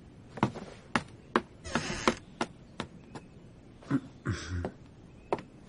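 Footsteps on a wooden floor: a run of light, slightly uneven taps, two or three a second, with a brief soft rustle a little after four seconds in.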